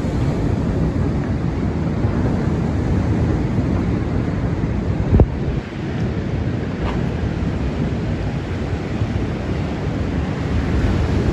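Wind buffeting the microphone: a loud, steady low noise that flutters, with one sharp knock about five seconds in.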